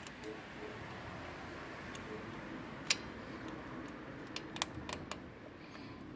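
Small metal clicks and scrapes as a drum-brake shoe hold-down spring and its retaining washer are pressed and twisted by hand: one sharp click about three seconds in and a quick run of clicks about a second later, over a faint steady background.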